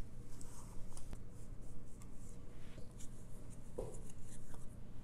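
Soft cookie dough being scooped out of a glass mixing bowl with a plastic measuring cup and worked by hand: faint scraping and rubbing, with a few light clicks and a short knock about four seconds in.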